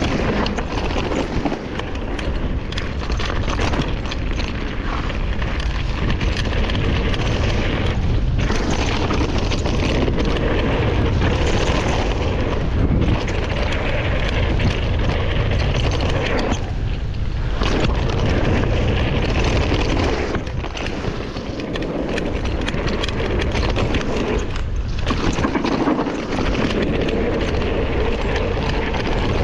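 Wind buffeting a camera microphone and mountain bike tyres rolling fast over a dirt trail, with the bike rattling. The sound is loud and steady, with a few brief dips.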